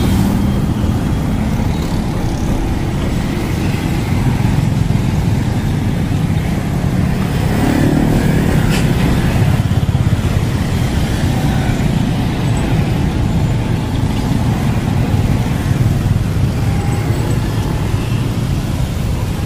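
Steady street traffic noise of motorbikes and cars passing, mostly a low rumble.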